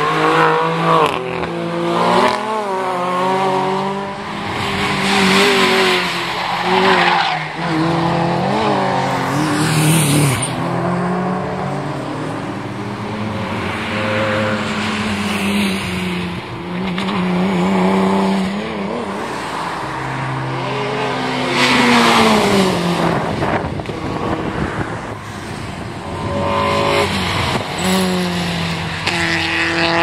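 Track cars driven hard past one after another, including a new BMW M3 and a McLaren supercar. Engine notes climb and drop in pitch through repeated gear changes, peaking as each car goes by.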